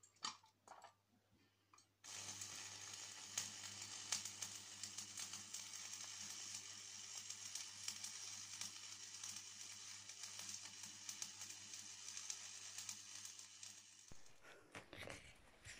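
Electric arc welding on steel: the steady crackling sizzle of the welding arc, starting abruptly about two seconds in and running until it cuts off near the end.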